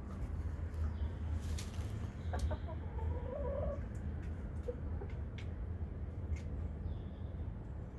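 Chickens clucking, with a short run of calls about two and a half seconds in, over a steady low rumble.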